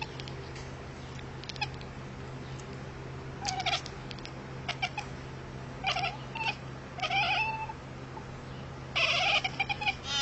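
A cat meowing in a series of short calls, louder and more crowded near the end, over a steady low hum.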